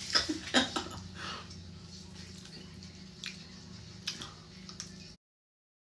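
A person chewing food with wet mouth clicks and smacks, a few sharp ones in the first second and a half and fainter ones after, over a low steady hum; the sound cuts off abruptly about five seconds in.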